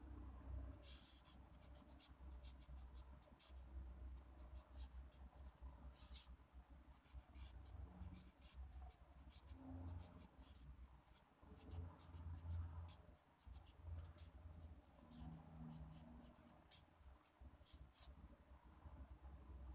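Faint scratching of a pen writing on paper, many short strokes in quick succession with brief pauses, stopping near the end.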